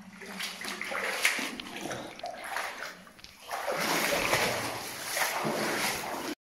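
Water splashing and sloshing in irregular bursts, with a short lull about halfway, cutting off abruptly near the end.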